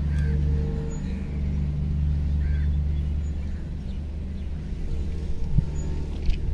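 Low, steady rumble of a diesel locomotive slowly fading as it draws away, with a couple of short chirps over it.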